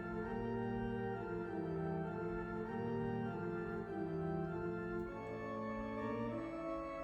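Background music of slow, held organ chords that change every second or so.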